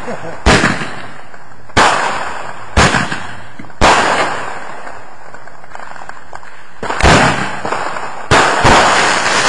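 Aerial fireworks firing: a run of sharp bangs about a second apart, then a pause, then a quicker cluster of bangs near the end. Each bang trails off in a short echo.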